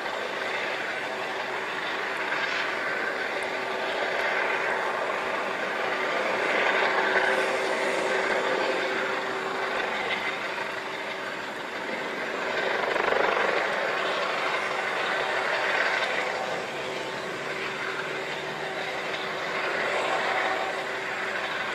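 Storm ambience: wind and rain in a continuous rushing noise that swells and eases in gusts every few seconds.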